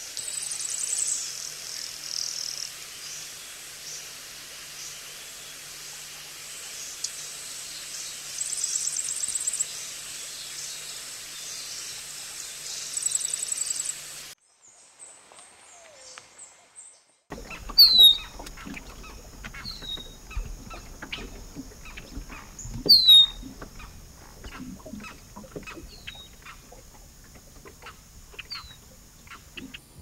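A yellow-faced grassquit's song: a high, thin, buzzy trill given three times. After a short break comes an eastern meadowlark's song of short, clear, down-slurred whistles, with fainter chips between them.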